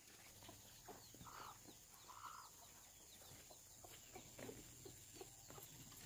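Chickens clucking faintly, a few short soft calls scattered through, over a steady high-pitched whine.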